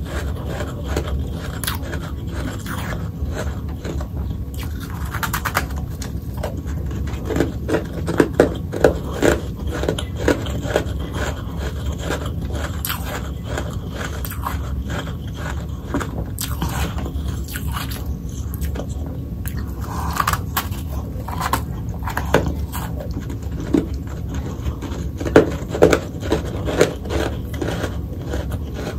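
Ice being bitten and chewed close to the microphone: irregular crunches and crackles, with louder clusters of bites about eight seconds in and again near the end.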